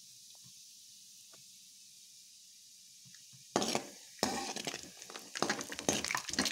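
Peanuts frying in hot oil in a kadai: a faint steady sizzle, then from about three and a half seconds in a metal ladle stirring them, scraping and clinking against the pan with louder sizzling.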